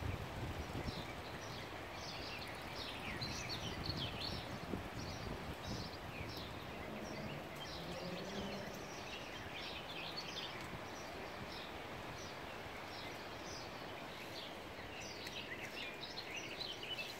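Steady rush of a flowing river, with small birds singing quick repeated chirps over it, busiest in the first few seconds and again near the end.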